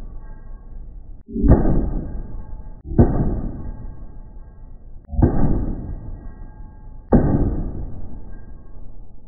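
Deep booming impacts, one about every one and a half to two seconds, each struck suddenly and dying away slowly with a faint ringing tone.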